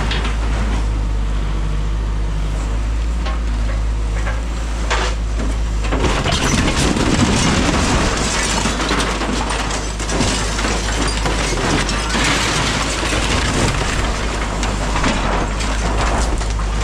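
Caterpillar 306 mini excavator's diesel engine running steadily while the machine crushes and breaks up a mobile home's structure. Crunching and cracking debris gets louder about six seconds in.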